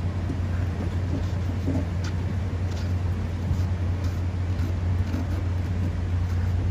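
A steady low hum, with a few faint light clicks.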